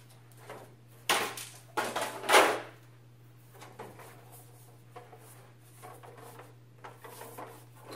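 Plastic telephone-system module casings being handled and set down on a table: a few knocks and a scrape in the first three seconds, the loudest about two and a half seconds in, then fainter handling knocks.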